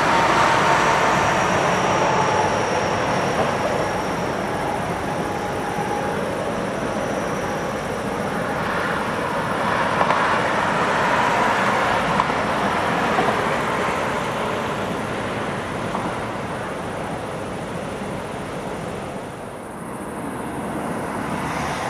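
Freight train wagons rolling past on the rails: a steady rumble and clatter of wheels, with a faint high whine through the first several seconds. It fades as the last wagons go by.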